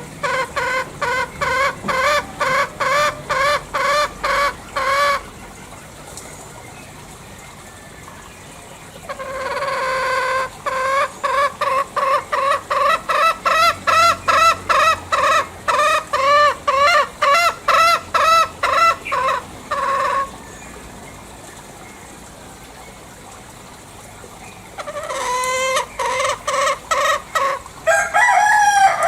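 Green junglefowl giving long series of rhythmic cackling notes, about three a second, in three bouts with pauses between. Near the end comes a different call that falls in pitch.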